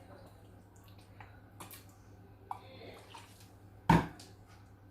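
Kitchen handling sounds: a few faint clicks and taps, then one sharp knock about four seconds in, as containers or utensils are set down while the marinade is prepared.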